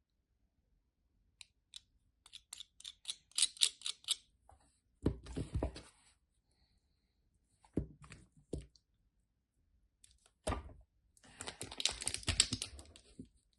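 Dry soap being cut and crushed: a run of crisp, crackling taps, then heavier crunches with dull thuds, and a dense spell of crackling crunching near the end.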